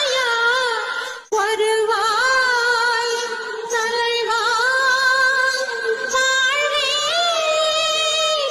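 Female voice singing a film song melody with ornamented, wavering notes over light accompaniment with little bass. The sound cuts out briefly about a second in.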